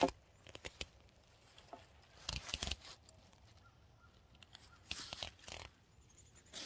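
Lumber handled at the foot of a wooden post on ground covered in dry leaves: a sharp knock at the start, then scattered light thuds and leaf rustling in two clusters, about two and a half and five seconds in.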